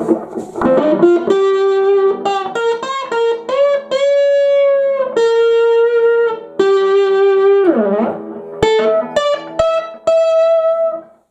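Aria STG series electric guitar played through an amp: a single-note melody of held, sustaining notes with a string bend near the end. A few sharp clicks come about 9 seconds in, and the playing stops just before the end.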